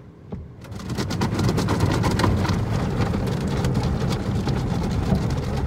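Automatic car wash working over the car, heard from inside the cabin: water pattering and drumming on the windshield and body. It starts about half a second in, builds quickly and then runs steadily.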